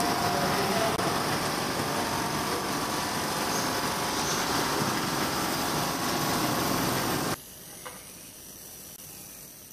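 Small twin-head oil-free air compressor running, a loud steady mechanical racket. About seven seconds in it cuts off suddenly, leaving a much quieter machine hum.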